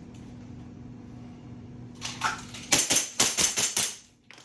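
Elite Force 1911 airsoft pistol firing a rapid string of about six sharp shots, two on each of three targets, packed into just over a second, with a brief rustle just before the first shot.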